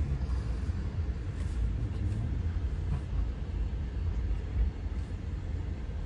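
Low, steady rumble of a car driving slowly, heard from inside the cabin.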